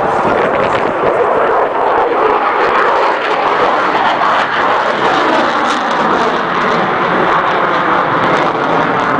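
Lockheed Martin F-22 Raptor's twin Pratt & Whitney F119 turbofan engines heard in flight as the jet pulls into a steep climb: loud, steady jet noise.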